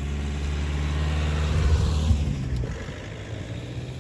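Dacia Duster's engine pulling the SUV up a soft sandy track as it drives past: the sound builds to a peak about two seconds in, then fades as the car goes by.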